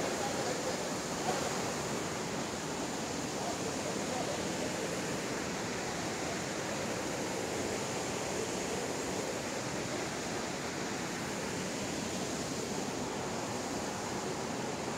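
Steady rushing of a waterfall pouring over rocks into a pool, loud enough to drown out a voice.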